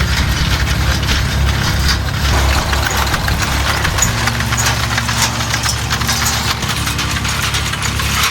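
Tractor engine running steadily under load, with a dense mechanical rattle over a low rumble.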